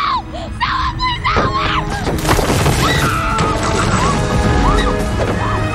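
Film soundtrack: dramatic orchestral score, with a woman's screams in the first second and a half, then stonework crumbling and crashing from about two seconds in.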